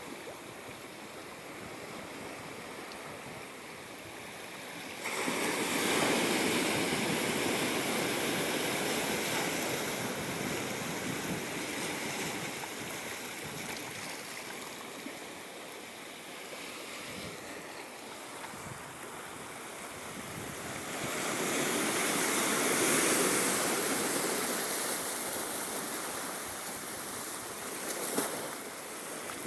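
Ocean waves washing up the shore, swelling twice as surges come in about five seconds in and again past twenty seconds, then slowly easing back, with a short sharp splash near the end.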